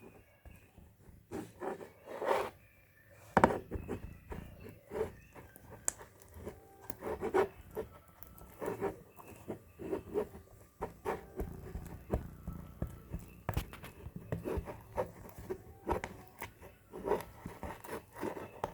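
Glitter-glue slime mixture being stirred by hand, with irregular short scrapes and sticky clicks.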